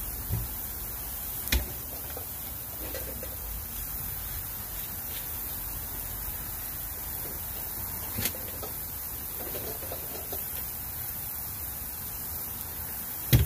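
Sliced vegetables sizzling on a hot flat-top gas griddle, a steady high hiss. Three sharp knocks break in, the loudest near the end.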